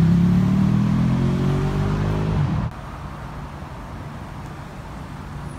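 A road vehicle's engine running and slowly rising in pitch as it accelerates, cut off abruptly about two and a half seconds in. Quieter steady traffic noise follows.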